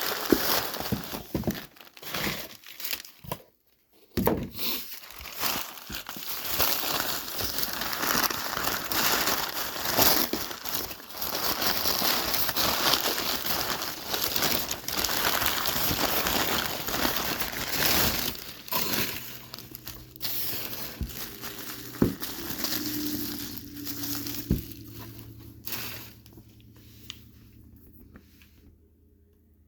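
Packaging being unwrapped by hand from a bottle: continuous crinkling and crumpling of wrapping material with brief pauses, dying away over the last few seconds.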